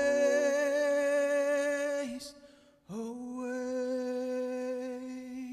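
A man singing long held notes to close a worship song: one sustained note fades out about two seconds in, and a second begins with an upward scoop about three seconds in and is held to the end. A low bass tone behind him stops just after the start.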